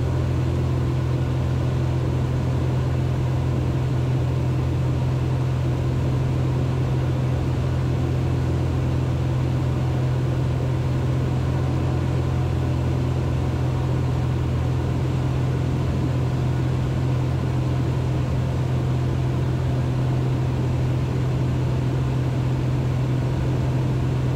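Cessna 182 Skylane's piston engine and propeller running at steady power in flight, a constant low drone that holds the same pitch and level throughout.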